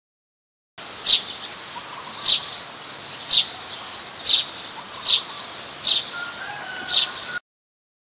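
Plain-backed sparrow chirping: seven sharp, high chirps about a second apart. A faint, thin whistle from another bird comes near the end.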